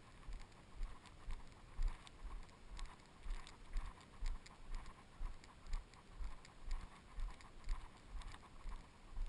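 A person's footsteps on a packed dirt trail at an even walking pace of about two steps a second, each a soft thud with a light scuff.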